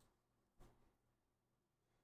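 Near silence: room tone, with one faint, brief sound about half a second in.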